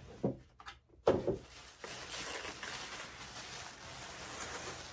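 Cardboard gift box opened: a sharp knock about a second in as the lid comes off, then a steady rustle of tissue paper being unfolded.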